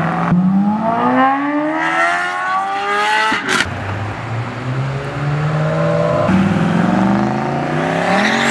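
Car engine and exhaust under hard acceleration: the revs climb steeply for about three seconds, break sharply at an upshift about three and a half seconds in, hold lower, then climb again through the next gear from about six seconds in.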